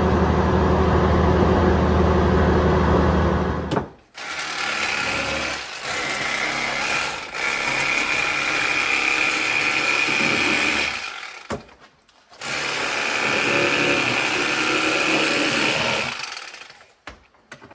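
For the first four seconds, a vehicle's engine and road noise hum steadily, heard from inside the cab. Then an electric fillet knife runs with a high whine in long stretches, with short pauses and one longer break, as it slices fillets from crappie and sand bass.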